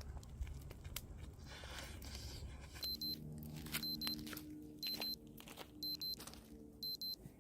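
Faint background noise with a few clicks, then about three seconds in a quiet music track comes in: soft held low notes under a short, high electronic beep repeating about once a second, doubled near the end.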